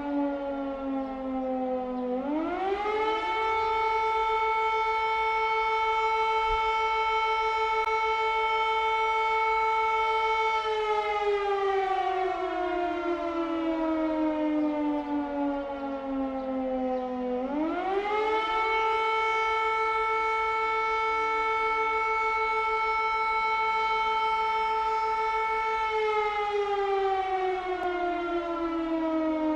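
Air raid siren wailing: its pitch rises quickly to a steady high tone, holds for about eight seconds, then slides slowly back down, and the cycle repeats twice.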